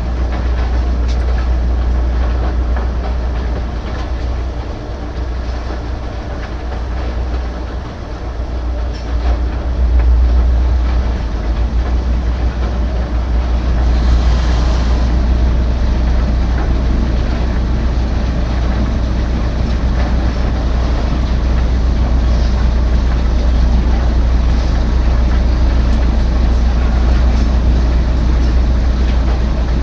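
Heavy machinery running steadily with a loud deep rumble, and a brief hiss about fourteen seconds in.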